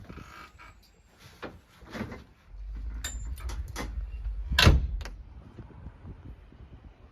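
A series of sharp knocks and clunks, with a low rumble in the middle. The loudest knock comes a little past halfway.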